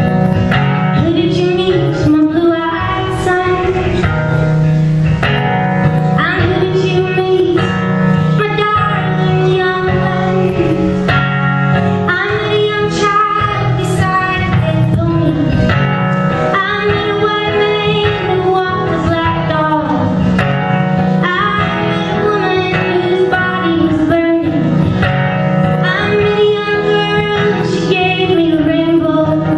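A woman singing a folk song live over acoustic guitar accompaniment, her sung lines coming in phrases a few seconds long.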